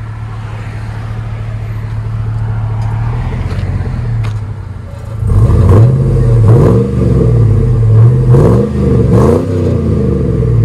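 Exhaust of a 2001 GMC Yukon XL's 5.3-litre V8 through a 14-inch Magnaflow muffler (3-inch in, 3-inch out), heard at its single side-exit tip. The engine idles steadily, then about halfway through it is revved sharply three times in quick succession.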